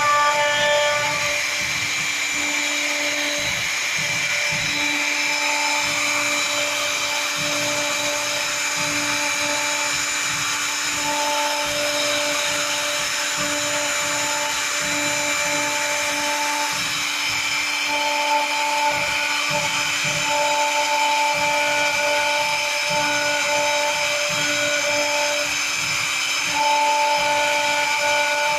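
Large-format CNC machine running, with a steady high whine and motor tones that start, stop and shift pitch every second or two as the axes move.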